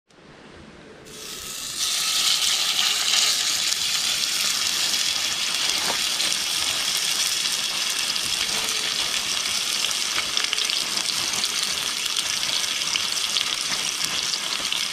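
Pieces of pork and beef frying in hot oil in a pan. The sizzle starts faint and grows over the first two seconds, then holds as a steady hiss.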